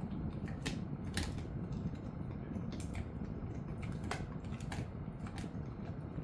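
A dog chewing a hard snack: irregular sharp crunches and clicks of teeth cracking on it, over steady low background noise.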